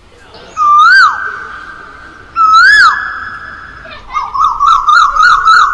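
Male Asian koel singing. It gives two loud whistled notes that rise and then drop away. Then, about four seconds in, it gives a fast run of about eight short rising notes. The notes trail off in an echo.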